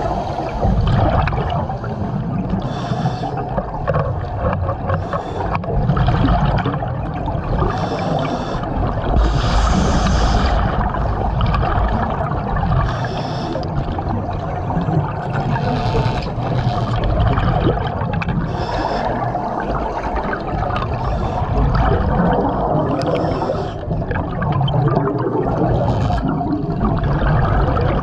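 Underwater sound heard through a diver's helmet: a steady rush of air and water, with bursts of bubbling exhaust every second or two.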